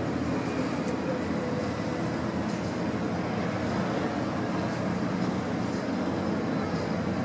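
Steady hum of distant city traffic, unchanging throughout.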